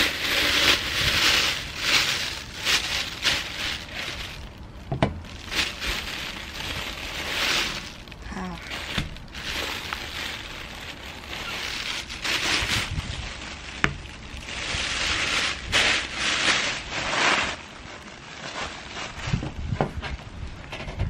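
Thin plastic carrier bag rustling and crinkling in irregular bursts as it is handled and pulled off a takeout order, with a couple of sharp knocks.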